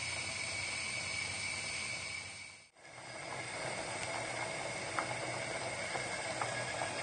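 Steady hiss from a pan of lentil soup heating and simmering on a gas burner, with a faint high steady tone. It drops out briefly about three seconds in, then comes back.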